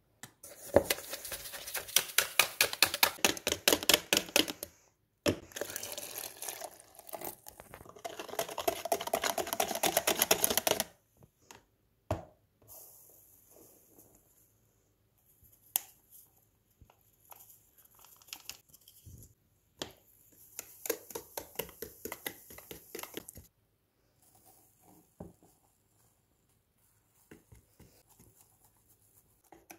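A spoon beating eggs and sugar in a plastic bowl: fast, rattling strokes in two long runs over the first ten seconds or so. Scattered clicks follow, then a shorter run of stirring as flour is worked into the batter.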